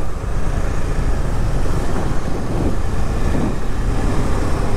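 Steady rush of wind on the microphone over the low rumble of a vehicle travelling along a road.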